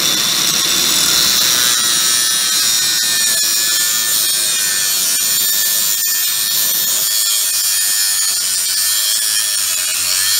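Cordless angle grinder running at speed, its cut-off wheel grinding through the end of a metal tube. It gives a steady high-pitched whine with the rasp of metal cutting.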